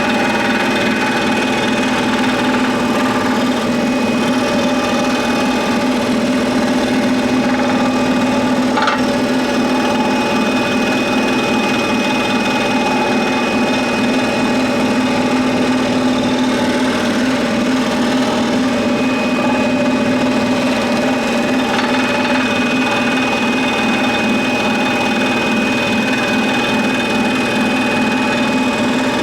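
Scroll saw running steadily, its reciprocating blade cutting through 40 mm thick pine. A single brief click about nine seconds in.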